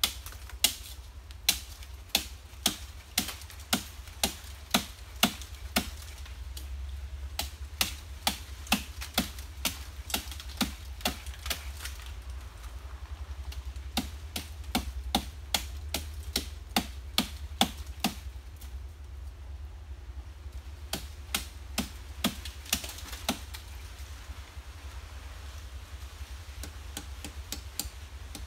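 Machete chopping at a nipa palm fruit cluster: repeated sharp chops, about two a second in runs with short pauses. The fruit is old and hard.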